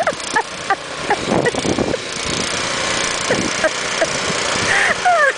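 Gas snowblower engine running steadily under load while its auger and chute throw snow, with several short high-pitched cries over it and a falling cry near the end.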